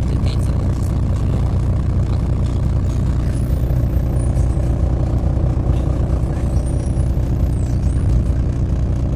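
MAZ 203.065 city bus running, heard from inside the passenger cabin as a steady low engine drone. Faint high-pitched squeaks come through a few seconds in and again near the end.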